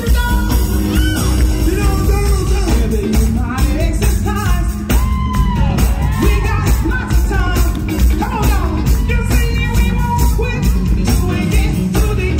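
Live soul band of drums, keyboards and electric guitars playing a steady beat while a woman sings lead into a microphone, her voice sliding between notes.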